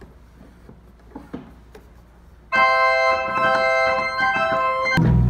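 A few sharp clicks of pipe-organ stop knobs being drawn over the low hum of the organ's blower, then about two and a half seconds in a chord sounds suddenly and is held, with deeper bass notes joining near the end.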